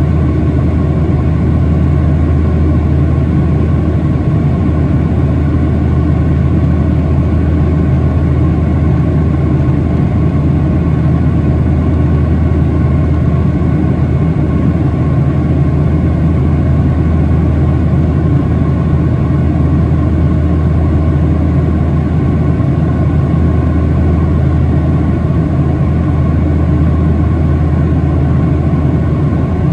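Steady cabin drone of a Boeing 737-800 in flight, heard from a seat over the wing: a deep, even hum from its CFM56 jet engines mixed with the hiss of airflow past the fuselage, with faint steady whining tones above it.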